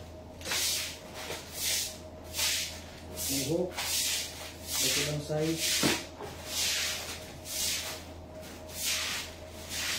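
Clear plastic packaging crinkling and rustling as packets are handled, in short repeated bursts about every half second.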